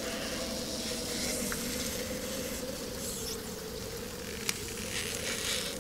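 A steady, low droning tone under a faint hiss, with scattered soft crackles and one sharp click about four and a half seconds in.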